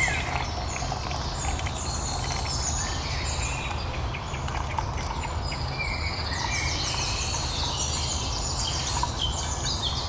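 Small woodland birds singing and chirping, with many short high trills that grow busier in the second half, over a steady low background rumble.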